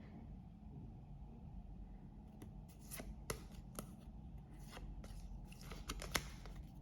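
Trading cards and pack wrappers being handled by hand: scattered soft crinkles and sharp clicks as cards are flicked through, loudest a little after three seconds and again near the end.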